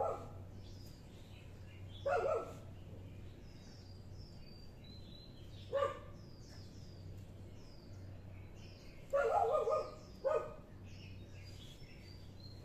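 A dog barking in short, spaced-out barks, with a quick run of them about nine seconds in, and small birds chirping faintly between the barks.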